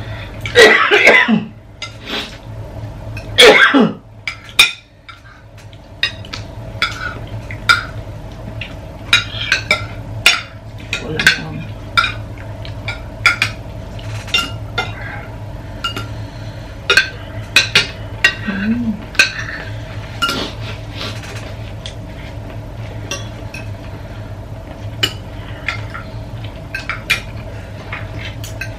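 Spoons and forks clinking and scraping on ceramic plates as people eat, with two loud coughs in the first few seconds from the heat of the chili, over a steady low hum.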